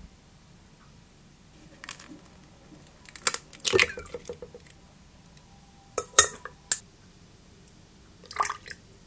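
An egg tapped and cracked against a stainless steel mixing bowl, the bowl ringing briefly, then loud sharp clinks about six seconds in as ice goes into the bowl, and a short splash of ice water being poured in near the end.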